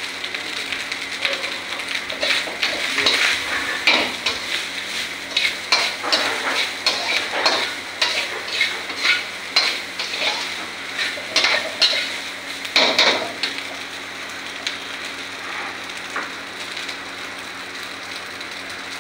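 Rice frying in ghee in a black iron wok, sizzling steadily while it is stir-fried, with a spatula scraping and knocking against the pan about once or twice a second. About two-thirds of the way through the stirring stops and only the steady sizzle goes on.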